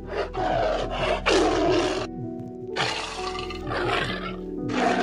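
A big cat roaring and growling in several rough bursts, over background music.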